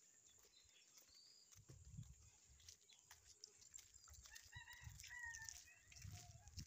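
A rooster crowing faintly, one call of about two seconds starting about four and a half seconds in and dropping in pitch at its end, over soft low thumps of walking.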